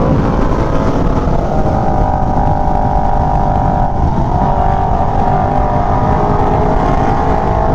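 Aprilia Tuono V4 motorcycle's V4 engine running under way at a fairly steady pitch, with a slight change in note about four seconds in, heard from the rider's helmet mic.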